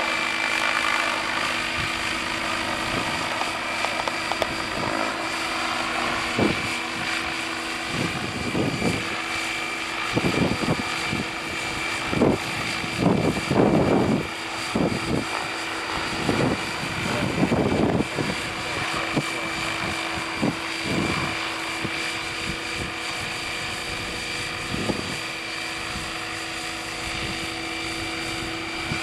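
Tazer 800 radio-controlled helicopter in flight: a steady whine from its rotors and drive, with uneven low rushing surges in the middle.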